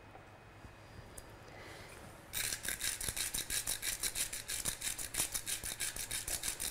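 Hand-twisted salt grinder working over a pot: a quick, even run of short grinding rasps, several a second, starting about two seconds in after faint room tone. It is the seasoning of the broth, about seven turns of the mill per person.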